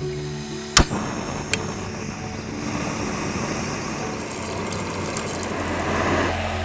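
A sharp click and then a second, as an integrated backpacking canister stove is lit, followed by the burner's steady hissing as it heats the water.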